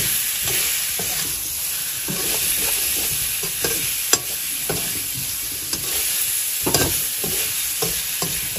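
Pork pieces with onion frying in oil in a metal kadai, a steady sizzle, while a perforated metal ladle stirs them and scrapes and clinks against the pan. One sharp clink comes about four seconds in, and a louder scrape comes near seven seconds.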